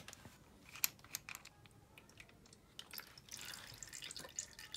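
Faint small clicks as an oil screen plug is turned out by hand from a KTM 690 Enduro R's crankcase, the sharpest about a second in, then a patter of engine oil dribbling from the open port into a drain pan.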